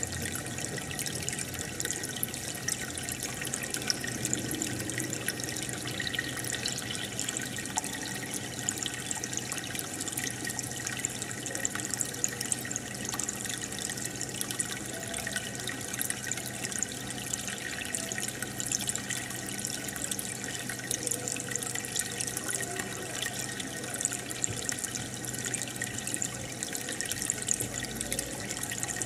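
Aquarium filter and air bubbles: water bubbling and splashing steadily, with a faint steady hum underneath.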